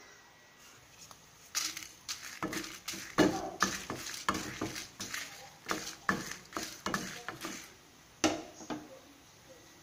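Dried red chillies being stirred in a dry pan with a spatula: irregular scrapes and rattles of the utensil against the pan, starting about a second and a half in and stopping a little after eight seconds.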